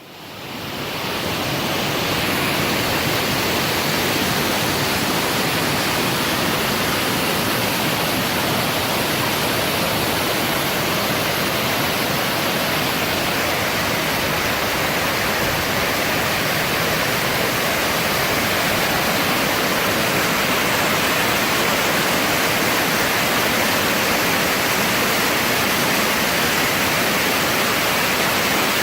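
Waterfall's water rushing steadily, fading in over the first couple of seconds.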